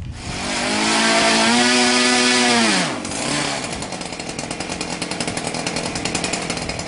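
Small model-aircraft engine running at high revs, its pitch dropping steeply at about three seconds. It is followed by a model engine running more slowly with a fast, regular pulse.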